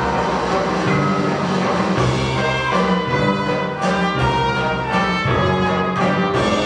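Orchestral backing music with brass, played at a steady level, with a few sharp percussive hits.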